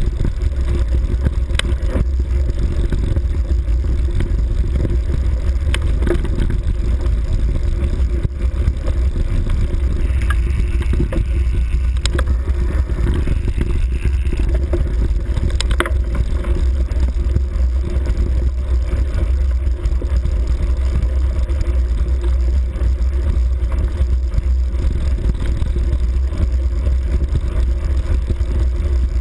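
Steady low rumble of a vehicle travelling along a grassy forest track, heard through a camera mounted on the vehicle, with wind on the microphone and occasional knocks as it goes over bumps.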